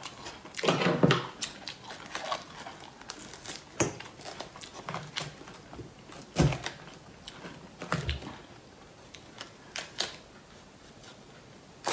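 Irregular clicks, taps and a few louder dull knocks as a durian husk is handled and pried apart to get the flesh out.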